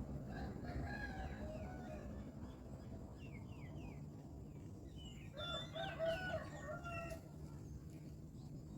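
A rooster crowing twice: a fainter crow about half a second in and a louder one past the middle. Between the crows, small birds give short, downward-sliding chirps.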